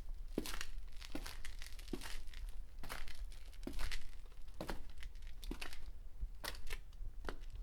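Footsteps on hard, dusty concrete: each step is a short, gritty scuff, at a steady walking pace of about one step a second.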